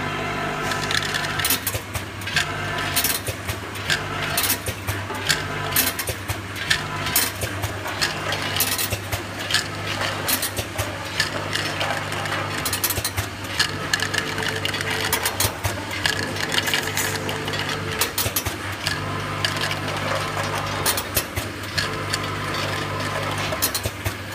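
8-channel capsule counting machine running: a steady low hum from its vibrating feed tracks, with a deeper hum that cuts in and out every second or two. Over it come many sharp, irregular clicks and rattles as capsules are fed and counted into bottles.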